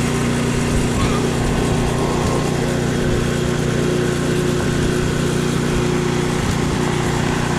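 A small engine running steadily at a constant pitch.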